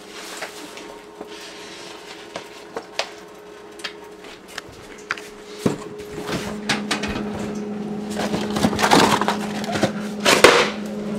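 Kitchen handling noises around a refrigerator-freezer: scattered clicks and knocks over a steady hum, a lower hum coming on about six seconds in, then louder rustling and clatter near the end as a packaged box is pulled from a freezer's wire basket.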